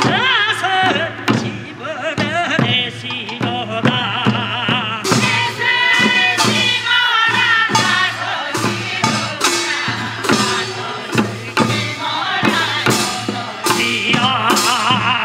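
Korean rice-transplanting farming song (nongyo): a voice singing a wavering, ornamented melody over regular drum beats. About five seconds in, sharper, brighter strikes join the rhythm.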